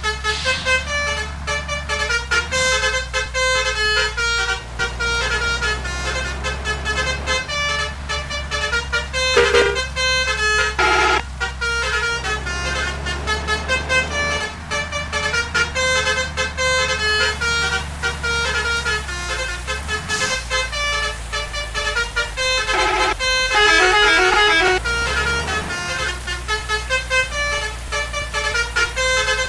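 A bus's multi-trumpet telolet air horn of the basuri type plays a quick melody of short changing notes, over the steady low running of the bus engine.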